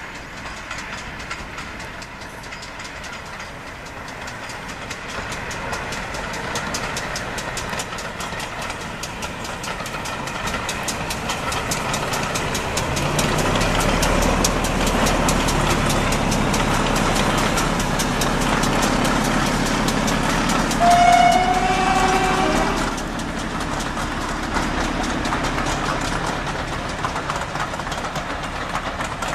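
A Class 14 diesel-hydraulic and a GWR pannier tank steam locomotive double-heading a train of coaches past. The locomotives grow louder as they approach, are loudest as they pass about halfway through, and give a short pitched blast of about two seconds roughly two-thirds of the way in. After that the coaches roll by with a quieter, steady rumble.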